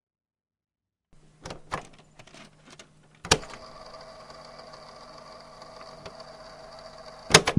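A few light clicks and knocks, then a sharp click about three seconds in starts a steady electrical hum with a faint hiss, which a second sharp click near the end cuts off, like a device being switched on and off.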